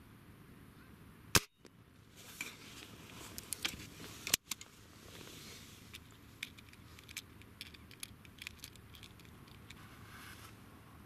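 Sharp crack of an air rifle shot about a second and a half in. Then comes a couple of seconds of clatter and clicks, and a second sharp crack about three seconds after the first. Scattered faint ticks follow.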